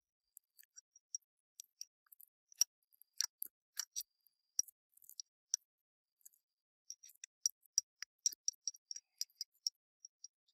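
Irregular sharp clicks and ticks, sparse at first and coming thick and fast for a few seconds near the end.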